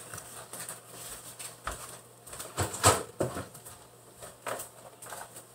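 A few scattered light knocks and clicks, the loudest a little past the middle, over a faint steady low hum.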